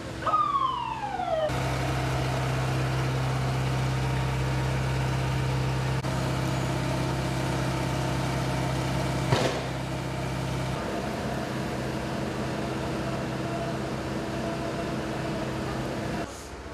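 A police vehicle's siren sweeps down in pitch once, then a heavy armoured police vehicle's engine runs steadily with a low hum. A single sharp bang cuts through about nine seconds in.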